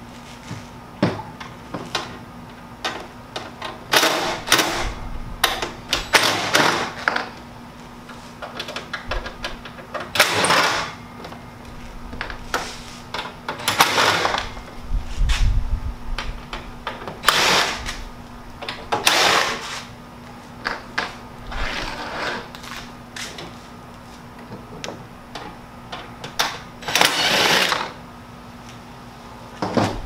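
Cordless drill-driver backing screws out of a window air conditioner's cabinet, in repeated short whirring bursts of about a second each with pauses between.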